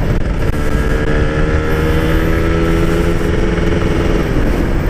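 Two-stroke motorcycle engine with a stock exhaust running at a steady pace while riding, over low wind rumble on the microphone; the engine note fades a little before the end.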